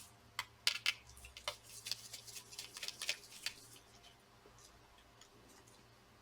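Small sharp clicks and taps of a laptop's cooling fan assembly and tools being handled. The clicks are scattered and fall silent about halfway through.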